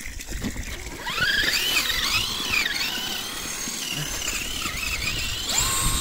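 Kyosho Blizzard EV RC snowcat's electric motor and gears whining, the pitch rising and falling with the throttle from about a second in, then climbing sharply to a high, steady whine near the end.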